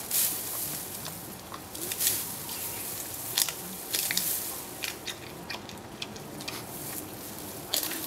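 Giant panda biting and chewing bamboo stalks, with irregular sharp cracks and crunches as the bamboo splits, a few of them much louder than the rest.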